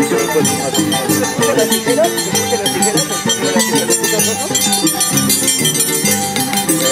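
Violin and Andean harp playing a scissors-dance (danza de tijeras) tune, with bright metallic clinking from the dancers' steel scissor blades over the strings.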